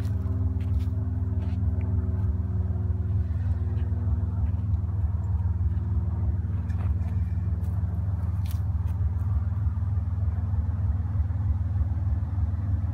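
A 2002 Toyota 4Runner's 3.4-litre V6 engine running low and steady as the SUV crawls down a dirt trail slope, with a few faint clicks.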